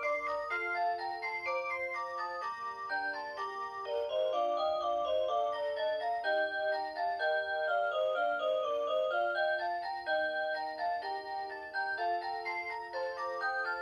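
Rhythm Watch Aria Cantabile melody alarm clock playing a tune on its Aurora Sound electronic melody chip, several notes sounding at once in a steady, chiming stream.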